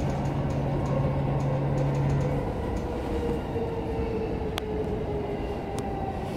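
Electric commuter train heard from inside the car, running noise with a motor whine slowly falling in pitch as the train slows for a station. A low hum cuts off about two and a half seconds in.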